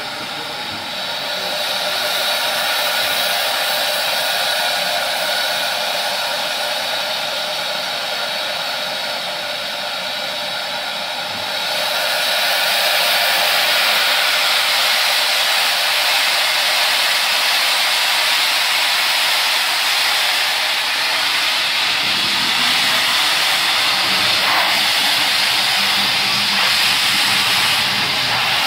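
Steam locomotive venting steam in a loud, steady hiss with no exhaust beats, growing louder about twelve seconds in.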